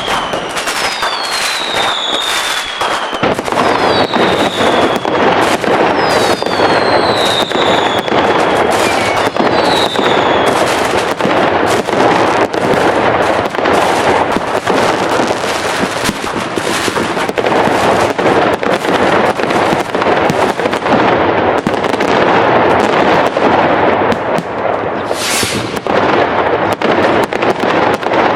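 Fireworks going off in a dense barrage of bangs and crackling. Several whistles falling in pitch sound over the first ten seconds or so, and a short hiss comes about 25 seconds in.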